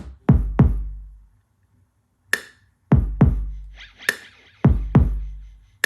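Recorded music played through LSA Signature 80 speakers: a sparse electronic drum-machine beat of deep kick-drum hits, each with a long low bass tail, and two sharp snare hits, with a short pause about a second and a half in.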